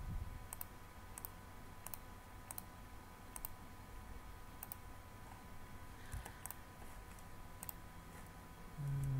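Computer mouse button clicks, about ten single clicks at uneven intervals, over a faint steady electrical hum. A short low hum comes near the end.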